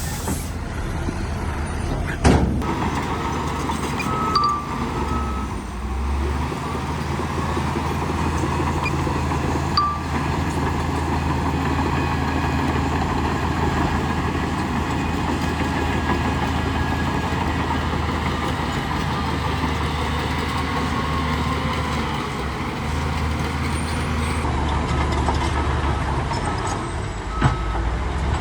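Heavy diesel engine of earthmoving machinery running steadily under load, with a few sharp metallic clanks, the loudest about two seconds in and another near the end. A couple of short high beeps sound about four seconds in.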